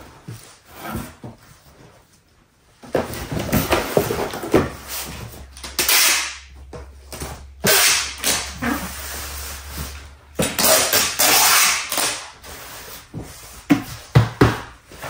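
Cardboard boxes and plastic wrapping being handled and rustled in irregular bursts while parcels are packed, with a packing-tape gun pulled and snapped against a box near the end.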